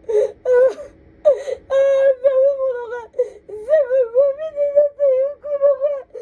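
A woman sobbing hard: a few short, gasping catches of breath, then a long, high, wavering wail that shakes in pitch.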